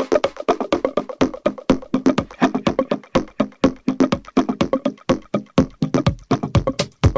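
Electronic dance music with a fast, steady percussive rhythm of clicky, wood-block-like hits over mid-range tones; a deep kick drum comes in strongly near the end.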